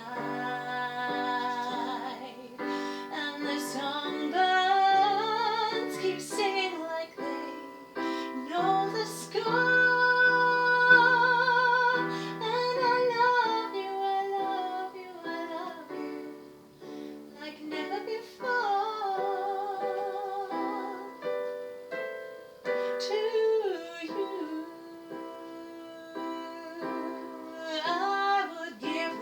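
Woman singing a slow ballad with piano accompaniment, her long held notes wavering with vibrato over sustained piano chords.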